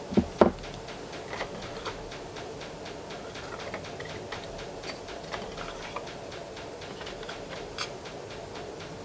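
Two sharp knocks just after the start, then scattered light clicks of small tools and regulator parts being handled during an O-ring change on a piston first stage. A steady hum and a fast, even ticking run underneath.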